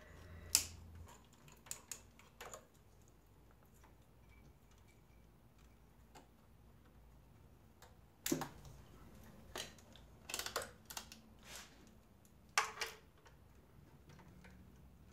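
Irregular light clicks and taps from hands handling the throttle position sensor, its plastic connector and multimeter test leads on a throttle body. There are a few clicks near the start and a denser run of them in the second half.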